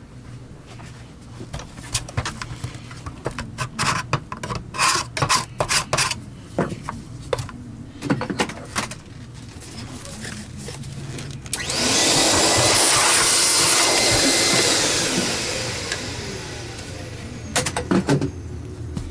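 Clicks and knocks of the plastic power-brush parts being handled. About twelve seconds in, a sudden loud rush of air starts, holds for about three seconds, then dies away.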